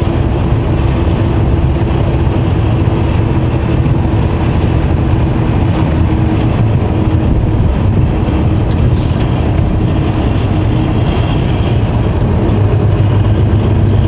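Mercedes Actros lorry driving at steady speed: a low, unchanging engine drone with tyre and road noise, heard from the cab.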